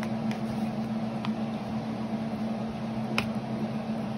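Metal tongs clicking against an aluminium sheet pan a few times as chicken breasts are turned over, the sharpest click a little after three seconds in, over a steady mechanical hum.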